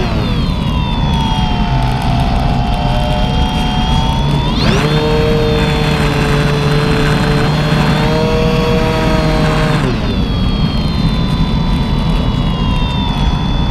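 Motor and propeller of a BigStick balsa RC plane in flight, heard from on board over steady wind noise. The pitch sinks at first, rises sharply about four and a half seconds in as the throttle opens, holds, then drops back about ten seconds in as the throttle is eased.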